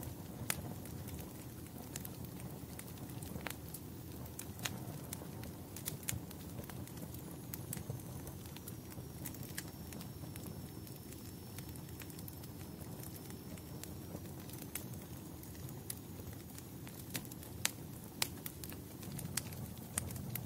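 Wood fire burning in a fireplace: a steady low rumble of flames with irregular sharp crackles and pops, a few louder snaps near the end. A faint high whistle runs through the middle for several seconds.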